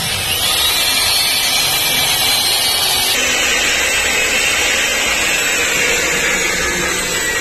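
Electric hand drill running under load, boring out a broken bolt stuck in a steel motorcycle frame mount, its whine wavering in pitch as it bites.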